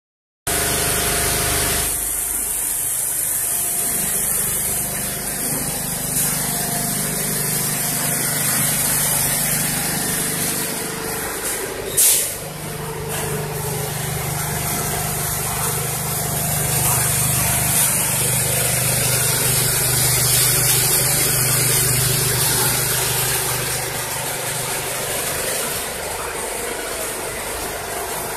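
A Richpeace L1500 high-speed multi-needle quilting machine running steadily: a continuous mechanical hum under a bright hiss. A single sharp click sounds about halfway through.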